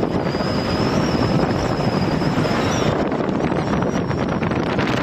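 Wind buffeting the microphone over the steady rumble of a moving car, with a faint high whine for the first three seconds.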